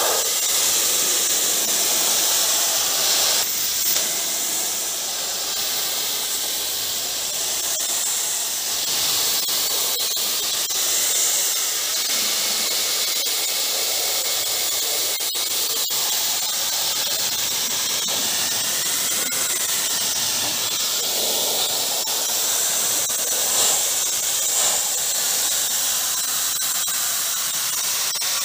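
Pressure washer spraying a steady high-pressure jet of water onto the fins of a car radiator, a continuous hiss of spray.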